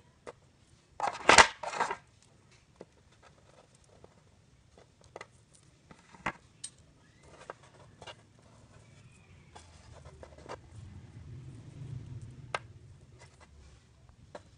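Fingers handling small fishing tackle (bead, monofilament line and hook) on paper: a brief loud rustle about a second in, then scattered small clicks and taps.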